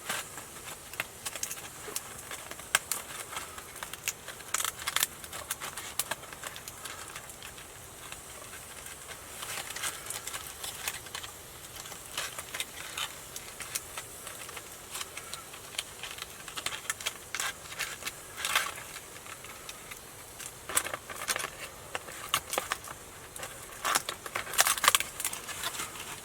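Potatoes frying in a pan on a gas camp stove: a low hiss with irregular crackling and popping.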